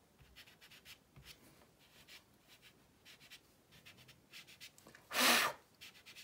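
Dry black pastel stick scratching in short, soft strokes across rough toned pastel paper. About five seconds in comes one short, loud puff of breath, the loudest sound here.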